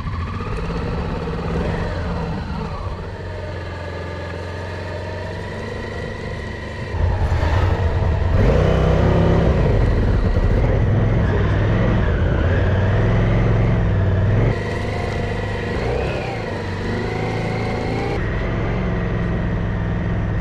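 Adventure motorcycle engine running under load while riding in soft sand, its pitch rising and falling with the throttle. It gets suddenly louder about seven seconds in and drops back a little at about fifteen seconds.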